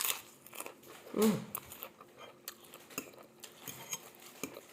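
Eating sounds: cutlery clicking against a plate and chewing, as scattered short clicks. About a second in there is one brief voiced sound, falling in pitch.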